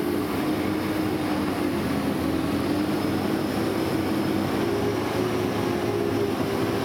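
Hand-cranked forge blower whirring steadily, its pitch wavering slightly with the cranking, forcing air into a coal forge to heat rivets.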